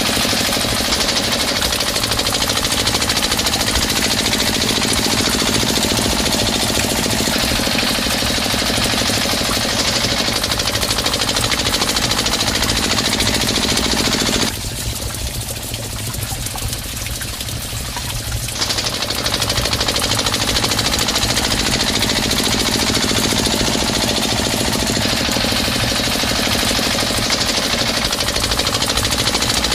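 Small motor in a miniature model engine running with a fast, steady mechanical rattle as it belt-drives a toy water pump. It drops in level and loses its brightness for about four seconds halfway through, then comes back.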